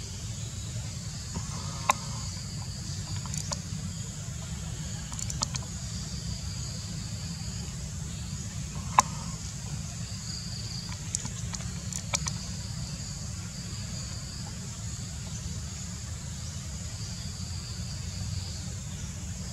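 Forest ambience: a steady high insect drone in two bands over a low steady rumble, broken by a few sharp clicks, the loudest about nine seconds in.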